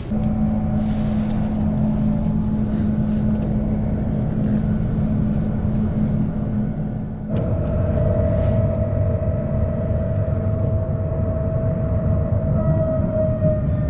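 Electric tram running along its track, heard from inside the car: a steady rumble of the ride under the whine of the traction motors. The sound changes abruptly about halfway through, and near the end the motor whine falls in pitch.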